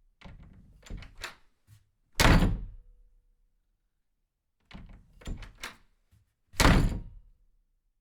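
Two loud, heavy thuds about four seconds apart, each preceded by a few lighter clicks and rattles.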